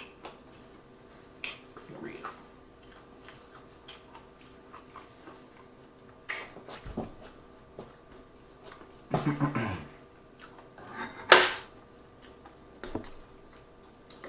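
Chewing and biting into crunchy fried chicken: scattered crunches and wet mouth clicks, with louder crunches about nine and eleven seconds in.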